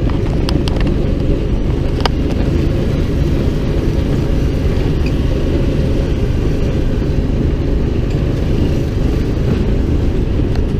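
Side-by-side utility vehicle driving over bumpy ground: a steady low engine and ride rumble, with a few rattling knocks about half a second and two seconds in.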